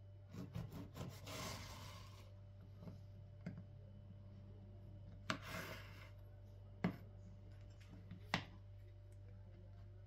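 Knife sawing through a crusty loaf of seeded bread on a wooden cutting board: a run of rasping strokes in the first two seconds, then three sharp knocks about a second and a half apart as the blade meets the board.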